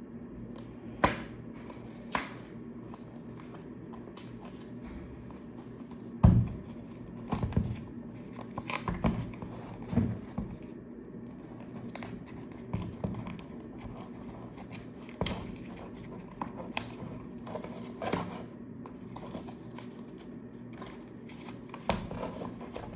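Hands opening a cardboard watch-band box and handling its packaging: irregular clicks, taps and rustles, with a steady low hum behind.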